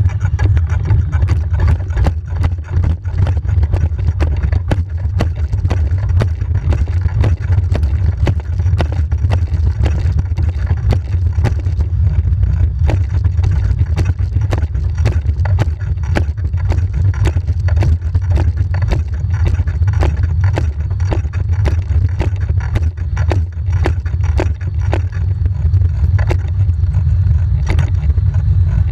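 Racing wheelchair driven hard on a roller trainer: a steady low hum from the wheels and roller spinning, with regular sharp slaps from the push strokes on the hand rims.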